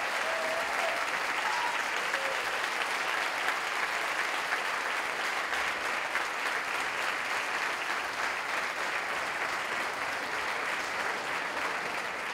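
Large audience applauding steadily, a dense sustained clapping that eases a little toward the end.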